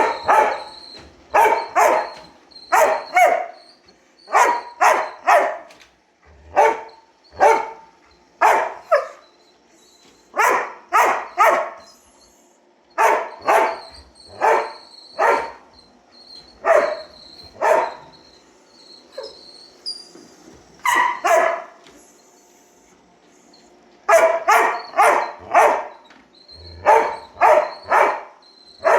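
A dog barking repeatedly at a running robot vacuum cleaner, in quick runs of two to four barks with short pauses and a longer lull about two-thirds of the way in. A faint steady high whine from the robot vacuum sits underneath.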